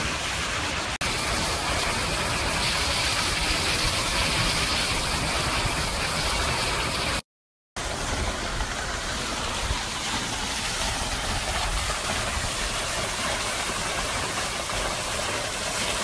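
Svartifoss waterfall and its stream, a steady rushing of falling and flowing water that cuts out briefly about seven seconds in.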